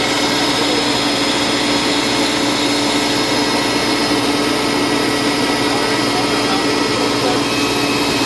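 Tractor engine running steadily at constant speed, a loud, even drone with a steady hum.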